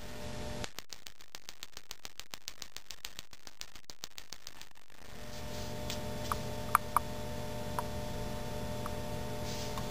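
Electronic gas grill igniter sparking rapidly, about six sharp snaps a second, until the 70 W high-pressure sodium lamp strikes about five seconds in. After that the lamp's ballast hums steadily under load, with a few sharp ticks.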